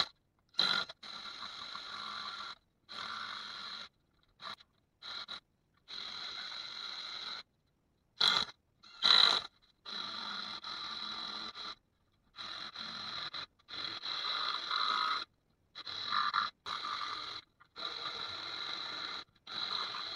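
A hand tool scraping and rasping on wood in a string of short bursts, each a second or two long, separated by abrupt silences, as mortises are cut into a wooden tabletop. Two briefer, louder scrapes come about eight and nine seconds in.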